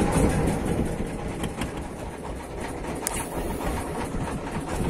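Small wooden fishing boat's inboard engine running steadily.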